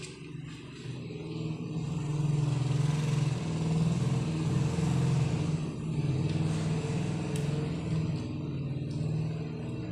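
A steady low mechanical drone that gets a little louder about two seconds in and holds.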